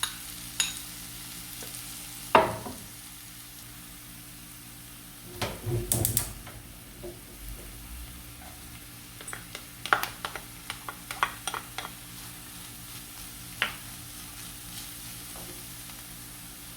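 Onions, garlic and other aromatics sizzling in oil in a frying pan while being stirred, the utensil knocking against the pan now and then, loudest about two seconds in and again around six seconds in.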